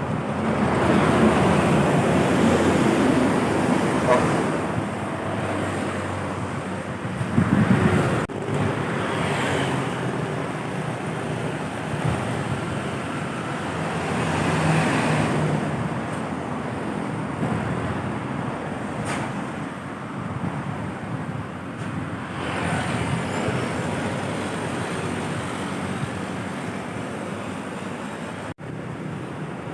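Heavy road traffic of trucks and buses passing, engine and tyre noise swelling several times as vehicles go by.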